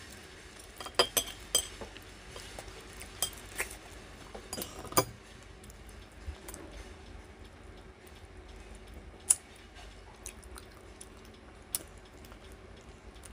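Plastic chopsticks clicking against a ceramic plate as the last food is picked up: a quick run of sharp taps in the first few seconds, then single clicks later, with close-up chewing in between.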